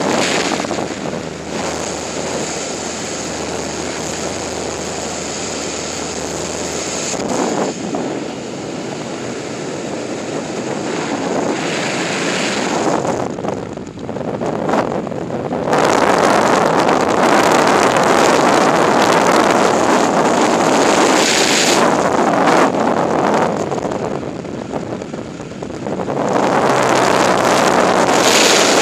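Freefall wind rushing over a skydiving camera's microphone: a loud, steady roar that dips briefly about halfway through, grows louder just after, and dips again near the end.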